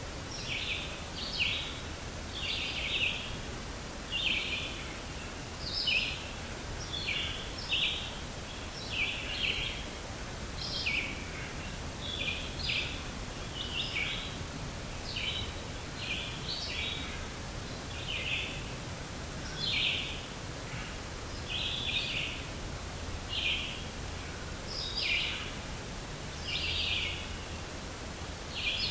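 A long irregular series of short, high-pitched bursts, about one or two a second, over a steady outdoor background hiss. These are the unexplained 'percussive' sounds recorded in a northern Wisconsin forest.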